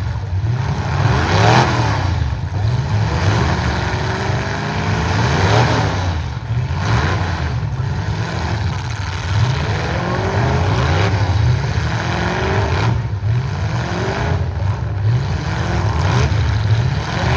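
Several stock pickup trucks' engines running and revving at once in a demolition derby heat. Many pitches rise and fall over one another above a steady low drone.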